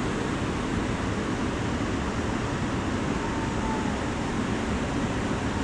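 Steady rushing noise of moving river water mixed with wind buffeting the microphone, with no distinct events.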